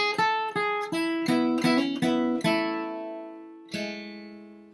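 A flatpicked steel-string acoustic guitar, capoed, plays a quick bluegrass lick of about eight picked notes. It ends on a chord that rings out and is struck once more near the end, then dies away. The lick is played with the first finger lifted, which leaves what the player calls kind of a dissonant note, some tension in the chord.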